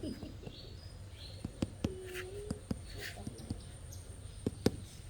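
Scattered light taps and clicks with a few short scrapes, from red bricks being laid as garden stepping stones; a brief low hum sounds about two seconds in.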